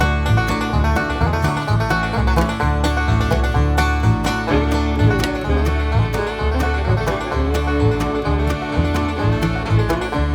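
Background music: an upbeat bluegrass-style tune on plucked banjo and guitar, with a steady bass line and a quick even beat.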